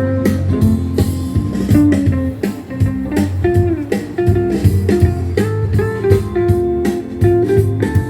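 Guitar music played back through B&W DM601 loudspeakers: a melody of plucked guitar notes over a steady bass line.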